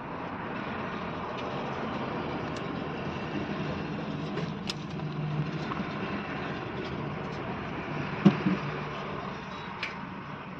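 Steady background noise with a few faint clicks as a fuse socket connector's wires are twisted and handled by hand, and a single short knock about eight seconds in.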